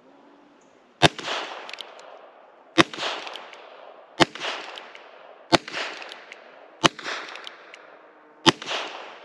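Heritage Rough Rider .22 LR single-action revolver firing six CCI Mini Mag 36-grain copper-plated hollow-point rounds, one shot every second and a half or so, each sharp crack trailing off in an echo. The fifth shot sounded kind of weak, but it fired.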